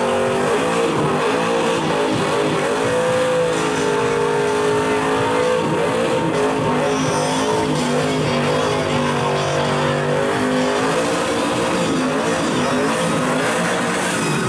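Fourth-generation Chevrolet Camaro doing a sustained burnout: its engine is held at high revs, the pitch rising and falling as the throttle is worked, while the rear tyres spin and screech on the pavement.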